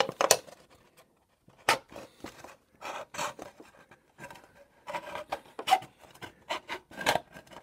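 Pocket knife blade sawing and scraping through a thin-walled aluminum can in short, irregular strokes, cutting easily through the thin metal near the bottom.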